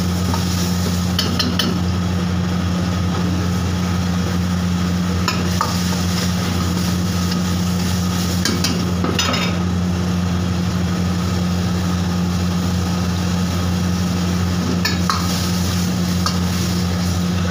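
Steel ladle stirring chicken lollipops in thick, sizzling gravy in an iron wok, with a few scraping clinks of the ladle against the pan. A steady low hum runs underneath.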